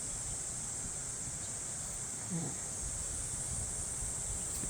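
Steady high-pitched insect chorus, with an uneven low rumble underneath and a short faint sound about two and a half seconds in.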